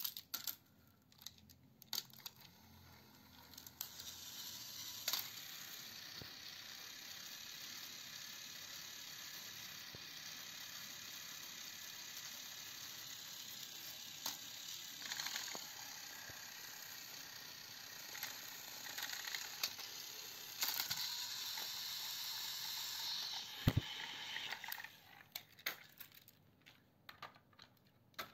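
Battery-powered Plarail toy train's small electric motor and gears whirring steadily as it runs along plastic track, after a few clicks as it is handled and switched on. The whir gets a little louder near the end and stops about 25 seconds in, followed by a few clicks.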